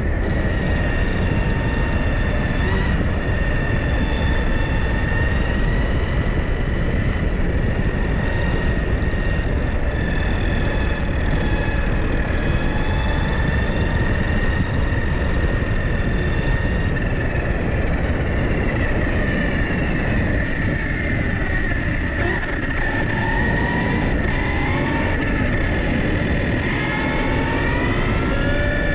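Arrma Kraton 6S RC car at speed, heard from its onboard camera: the motor and drivetrain whine steadily over a heavy rush of wind and road noise. The whine bends up and down in pitch with the throttle, swinging more often in the last ten seconds as the car slows.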